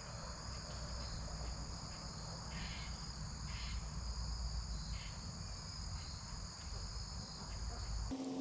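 Steady high-pitched insect chorus of trilling crickets over a low outdoor rumble, with a few faint scuffs; the chorus breaks off just before the end.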